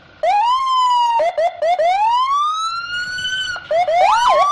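Electronic police-car siren switching between patterns: quick rising chirps, long rising wails that cut off sharply, and a fast up-and-down warble near the end.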